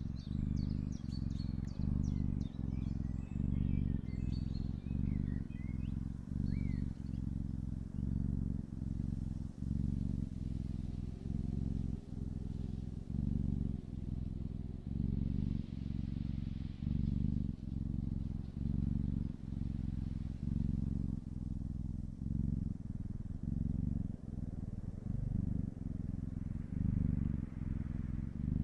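Kitten purring steadily, a low purr that swells and breaks a little more than once a second with each breath. Faint bird chirps sound in the first few seconds.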